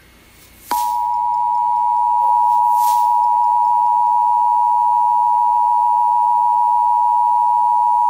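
Emergency Alert System attention signal: a loud, steady two-tone beep (the 853 and 960 Hz dual tone) that begins just under a second in and holds without a break.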